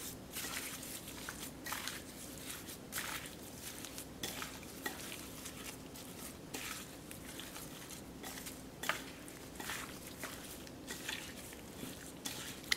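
Raw tilapia pieces being mixed with seasoning by a gloved hand in a ceramic bowl: faint, irregular wet squishes and rustles.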